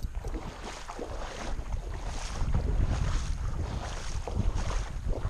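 Water sloshing in a regular rhythm, about one splash every three-quarters of a second, as someone wades through shallow river water, over a low rumble of wind on the microphone.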